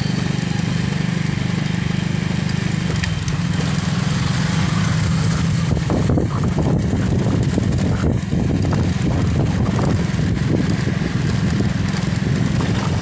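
Motorcycle engine running steadily while under way, with wind and road noise.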